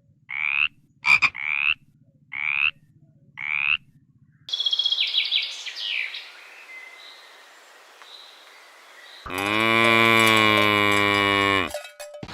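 A sequence of animal calls: four short, rising calls in the first four seconds, then high chirping, then one long, low call of about two and a half seconds near the end.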